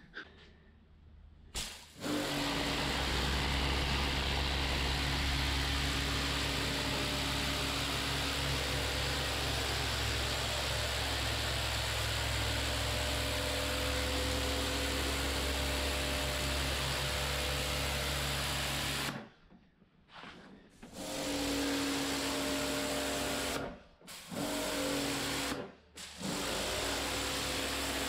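Kärcher K7 Full Control pressure washer running and spraying patio slabs: a steady motor-and-pump hum under the hiss of the water jet. It starts about two seconds in, cuts off abruptly about two-thirds of the way through, then comes back in three shorter bursts.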